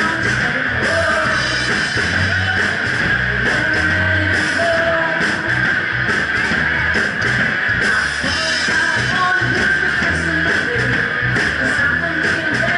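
Loud live rock band playing: electric guitar and bass over drums with cymbal hits, and a woman singing into a microphone. The drums are a Ludwig Vistalite acrylic-shell kit.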